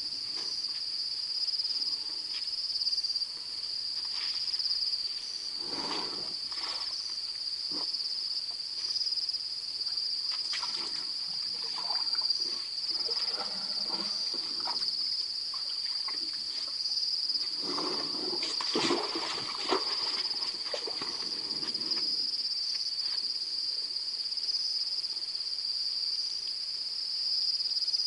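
Steady high-pitched chorus of night insects, with bouts of splashing and trickling water as elephants draw water with their trunks at the waterhole. The water sounds are loudest from about 18 to 22 seconds in.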